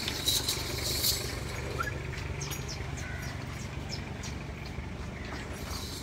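Steady low hum of an idling vehicle engine, with scattered clicks and rustles over it, busiest in the first second or so.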